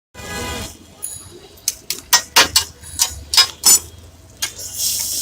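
Street-food cooking: a metal utensil clanks sharply against a cooking pan, about eight quick strikes in two seconds, then hot oil starts sizzling loudly near the end.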